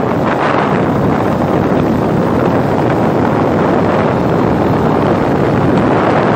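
Steady, loud wind rush on the microphone of a motorcycle riding along a dirt road, with the bike's engine and tyre noise underneath.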